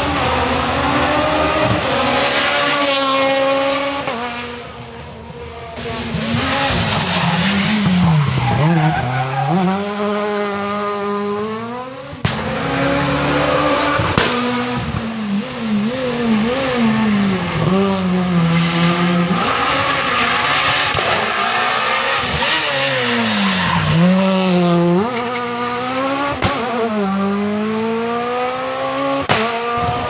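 Renault Clio S1600 rally cars, high-revving naturally aspirated 1.6-litre four-cylinders, passing one after another at full attack. The engine note climbs through the gears and drops back on downshifts into corners, then climbs again as they power out.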